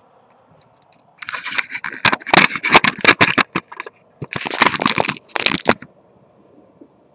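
Loud scraping and crackling handling noise from the recording phone being rubbed and jostled. It comes in two spells: from about a second in to past three seconds, and again from about four and a half seconds to nearly six.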